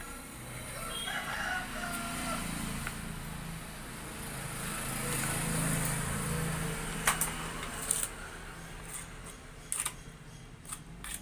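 Butcher's knife cutting rib bones out of a beef chest piece on a wooden chopping block, with a few sharp knocks of the blade on bone or block in the second half. A rooster crows in the background about a second in.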